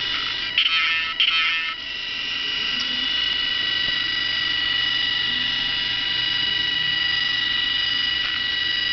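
Small electric drive motors of a homemade robot car running with a steady high whine, broken by two short, louder buzzy bursts about half a second and a second in.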